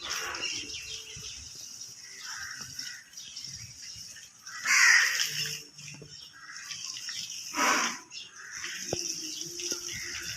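Crows cawing, a few short loud calls, the loudest about five seconds in and another near eight seconds, over a steady high-pitched background hiss.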